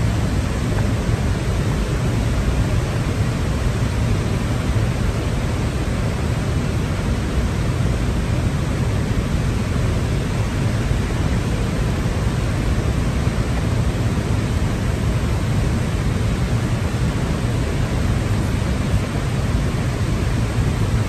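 Steady rushing noise, heaviest in the low rumble and unchanging throughout, with no distinct motor whine or knocks standing out above it.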